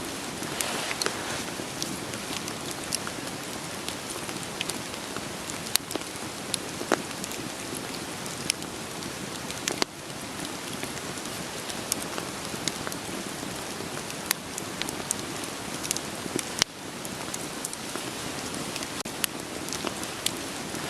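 Steady rain falling, with irregular sharp pops and crackles of a wood fire burning over it. The sound dips briefly twice.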